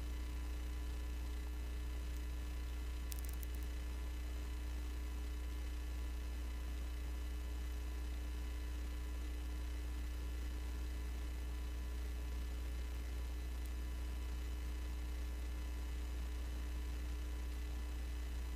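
Steady low electrical mains hum with faint constant tones above it, carried in the broadcast audio feed in place of any game sound. There is a faint brief click about three seconds in.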